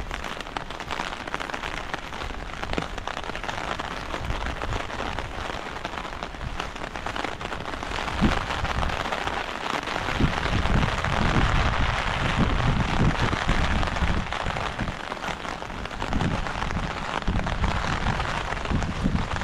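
Heavy rain falling steadily, a dense hiss, with irregular low thumps that come more often in the second half and a sharp tap about eight seconds in.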